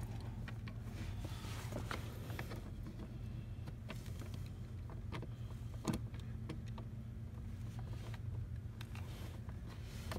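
Steady low hum with scattered light clicks and taps, and one sharper knock about six seconds in, as a cordless drill is worked against the plastic trim under the dash.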